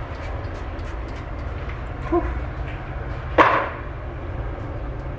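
A single short spray from a perfume bottle about three and a half seconds in, a sudden hiss that fades within half a second, over a steady low rumble.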